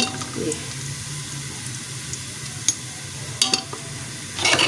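Sliced onions frying in hot oil in a metal pot, a steady sizzle, the onions already browned. A metal slotted spoon clinks against the pot a few times, most sharply about three and a half seconds in and near the end.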